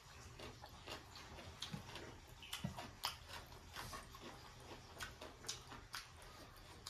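A person eating rice and pork gravy with the fingers: quiet, irregular wet clicks and smacks of the mouth while chewing.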